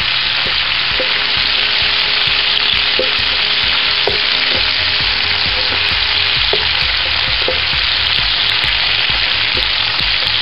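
Sliced carrots, green bell pepper and onion sizzling steadily in oil in an electric skillet while a wooden spatula stirs them, with a few light scrapes and knocks of the spatula on the pan.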